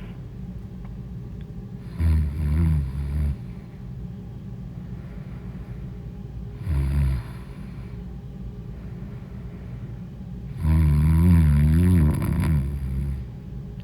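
A woman snoring in her sleep: three loud, low, rattling snores, the first about two seconds in, a short one near the middle and the longest and loudest near the end, over a steady low hum.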